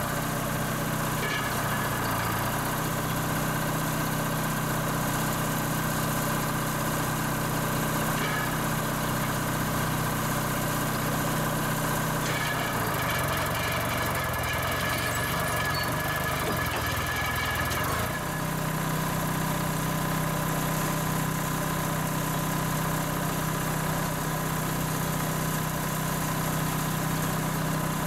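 The engine of an old Unit crawler crane running steadily as the crane works. Its note shifts about twelve seconds in, and about eighteen seconds in the low note comes back stronger.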